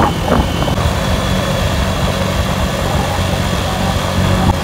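Engine of a road vehicle running steadily while driving along a paved road, with wind rushing over the microphone.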